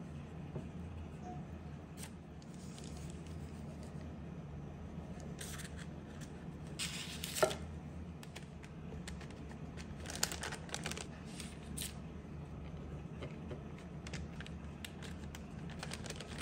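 Parchment paper rustling and crinkling in short bursts as it is handled around a glazed cake, with one sharp tap partway through and a steady low hum underneath.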